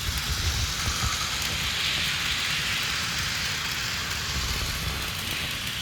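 HO-scale Walthers ES44AC model diesel locomotive with a DCC sound decoder running steadily with its train: a low engine rumble from the decoder's speaker under an even hiss.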